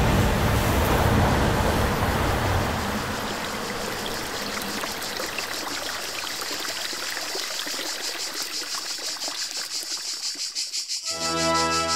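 Running, trickling water, loudest at first and dying down over several seconds. Near the end, sustained organ-like chords come in.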